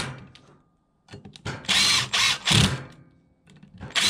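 Cordless impact driver running stator mounting bolts into a Yamaha YFZ450R flywheel cover: three short bursts about a second and a half in, and another just starting near the end.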